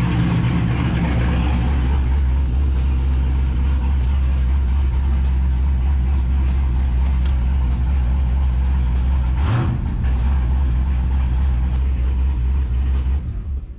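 Twin-turbo LS V8 idling steadily on ethanol, heard from inside the car, just after its throttle body was readjusted to bring down a too-high idle. There is a brief break in the note about nine and a half seconds in, and near the end the engine is switched off and stops.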